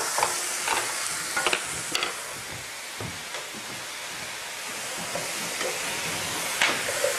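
Vegetables sizzling in a hot nonstick frying pan as they are stir-fried with a wooden spatula, with a steady hiss. Several light scrapes and knocks of the spatula on the pan come in the first two seconds and once more near the end.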